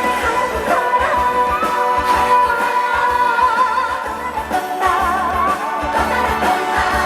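Trot song performed live over a PA: a woman singing with vibrato over amplified backing music with a steady bass beat.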